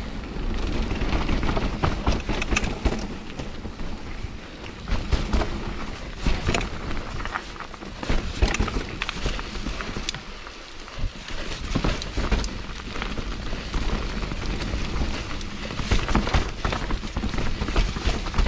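Mountain bike ridden down a rough, muddy trail: tyres on wet dirt and rocks, with frequent knocks and rattles of the bike over bumps over a constant low rumble.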